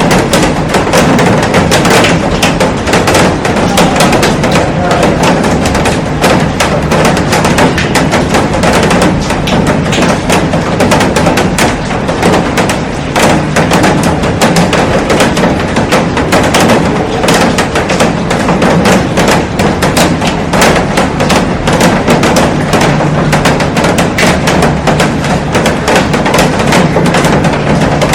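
Heavy rain falling on a glass roof and a garden: a dense, steady patter of drops with many sharp individual hits.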